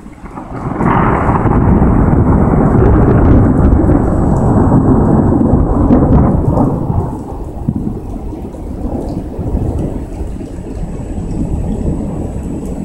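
Thunder from a lightning strike: a long rumble that swells about half a second in, stays loud for several seconds, then eases to a lower rumble, with rain falling.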